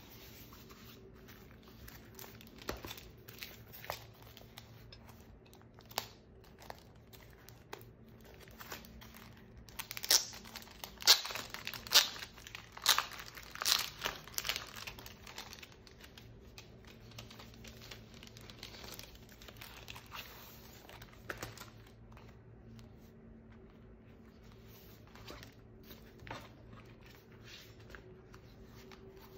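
Tissue paper and plastic packaging crinkling and rustling as a planner cover is unwrapped by hand. The crackles are scattered, with the loudest, densest run about ten to fifteen seconds in.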